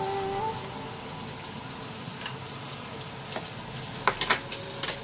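Glazed pork spareribs sizzling and crackling on aluminium foil in a hot air fryer basket, with a few sharp pops near the end.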